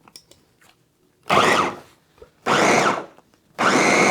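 Small electric food chopper grinding onions in three short pulses, each under a second. The motor whine rises as it spins up and drops as it is let off.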